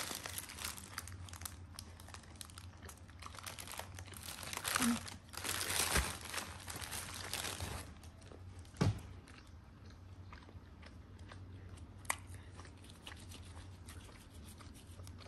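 A child eating a hamburger: the wrapper crinkles and he bites and chews, in crackly bursts at the start and again from about four and a half to eight seconds. A single dull thump comes about nine seconds in and a sharp click near twelve seconds.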